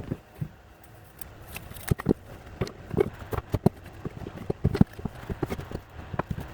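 Wooden brood box pieces knocking and clattering as they are handled and fitted together: a run of irregular knocks and clicks, some sharper than others.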